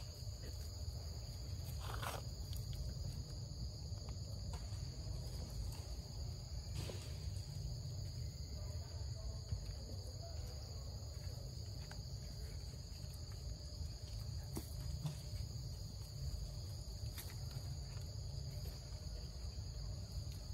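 Steady insect chorus: two unbroken high-pitched tones that hold level throughout, over a low rumble, with a few faint rustles and ticks.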